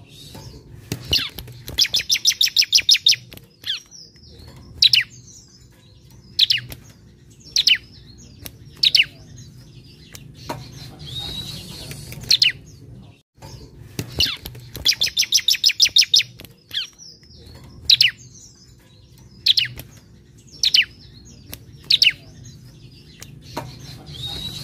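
Bar-winged prinia (ciblek) singing: a rapid trill of sharp, high notes, then single sharp falling notes every second or two. The same phrase sequence comes round again about halfway through.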